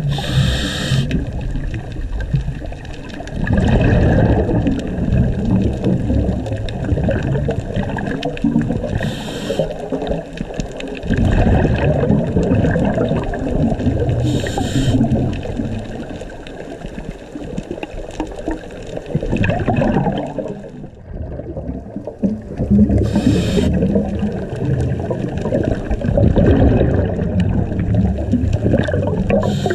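Scuba regulator breathing heard underwater: a short hiss as the diver inhales, about every five to nine seconds, each followed by a long, low rumble and gurgle of exhaled bubbles.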